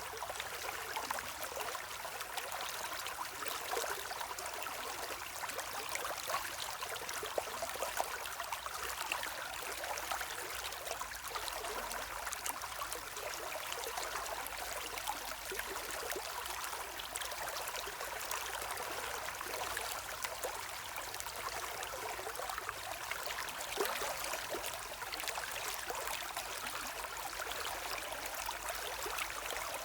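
Shallow river or stream running steadily, a continuous wash of water with small trickling and splashing flickers throughout.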